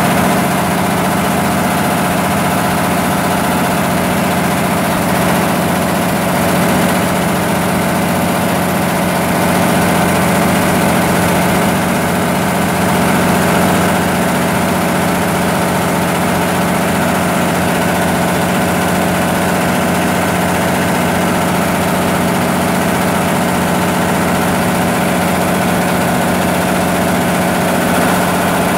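Cummins 6B inline six-cylinder diesel generator set running steadily at governed speed, its alternator putting out 60 Hz (59.9 Hz on the controller). The engine note is loud and unchanging throughout.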